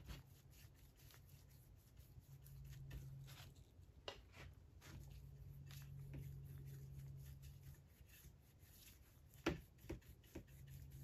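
Near silence: faint scratchy strokes of a paintbrush laying varnish onto oak boards, over a low hum that comes and goes. A few light taps, the sharpest about nine and a half seconds in.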